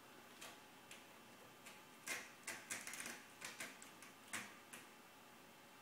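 Faint, irregular light taps and scratchy clicks of a kitten's paws and claws on a scratching post and hardwood floor as it plays. The clicks come singly at first, then in a quick cluster through the middle.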